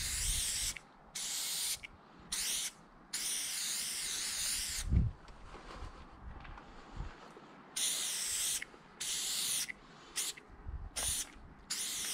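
Aerosol spray-paint can hissing in about eight sharp-edged bursts, some a fraction of a second and the longest nearly two seconds. A brief low thump comes about five seconds in.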